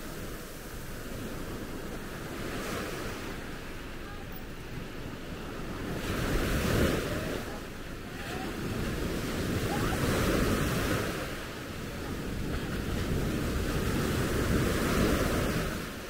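Small waves breaking and washing up a sandy shore, the surf swelling and fading about every four seconds.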